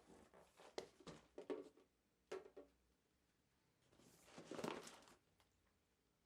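Faint rustling and crinkling, like handled paper or plastic: a quick run of short rustles, one more a moment later, then a longer rustle about four seconds in.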